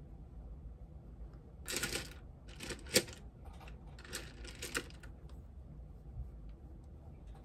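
Makeup brushes and products being handled and set down on a hard surface: a run of clicks and rattles starting about two seconds in, with one sharp click near the middle.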